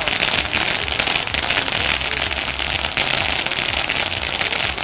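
Ground fountain firework burning, a continuous dense crackling spray of many tiny pops with no break.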